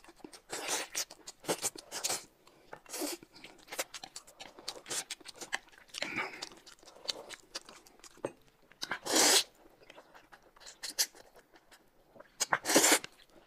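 Close-miked eating sounds: noodles and broth slurped, chewing, and small clicks of chopsticks and a spoon against dishes. The loudest slurps come about nine seconds in and again near the end.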